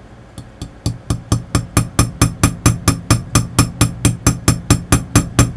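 Light, rapid taps of a small hammer on a watchmaker's staking punch, about four a second and some two dozen in all, driving a friction-fit part into place. The first few taps are softer.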